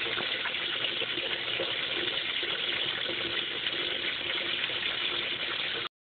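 Top-loading washing machine filling: water pouring in sheets from the rim into the perforated tub, a steady rushing that cuts off suddenly near the end. The fill, which had only been trickling, now runs at full flow after loose plastic parts on the back were reseated.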